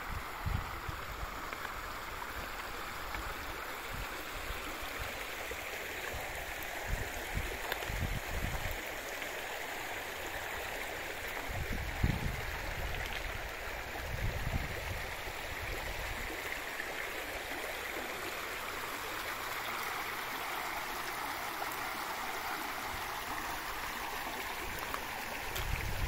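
Bzyb mountain river rushing over its stony bed in a steady, even rush, with gusts of wind buffeting the microphone now and then.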